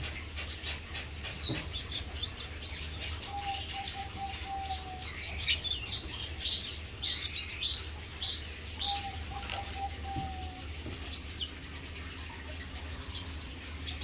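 Red siskin singing: a fast twittering run of high chirps and trills, busiest in the middle, with two held lower whistled notes, one a few seconds in and one near the end.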